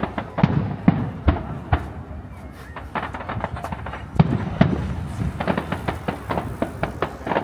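Fireworks display: a rapid barrage of sharp cracks and heavier bangs. The bangs are densest in the first couple of seconds and again from about four seconds in.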